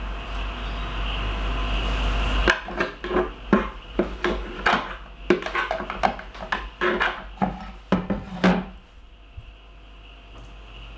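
A metal spoon knocking and scraping against plastic takeaway containers and a blender jug as sticky date-and-cacao fudge mixture is spooned out. It is a run of sharp knocks, two or three a second, starting a couple of seconds in and stopping shortly before the end.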